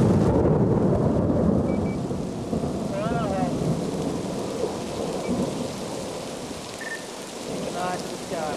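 A clap of thunder that rumbles loud at the start and fades away over the next few seconds, over the steady hiss of heavy rain.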